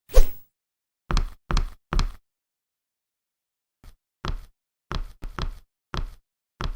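Short, dry knock-like sound effects, about eleven separate hits. One loud hit comes at the start and three quick ones follow about a second in. A quieter, irregular string of hits fills the second half.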